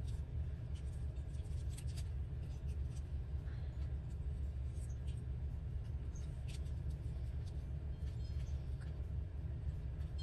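Faint rustles and light taps of paper scraps being handled and laid onto a collage board, over a steady low hum.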